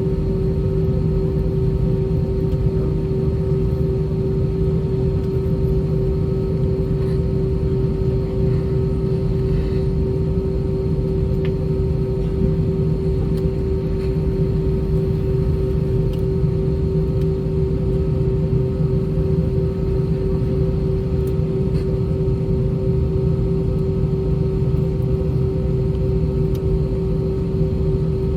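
Airbus A320's IAE V2500 engines running at taxi power, heard from inside the cabin as a steady drone with a constant low hum tone.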